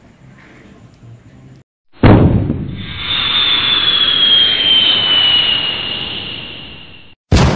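Faint room tone, then about two seconds in an outro sound effect starts with a sudden loud blast: a rushing whoosh with a high whistle slowly falling in pitch, lasting about five seconds before cutting off.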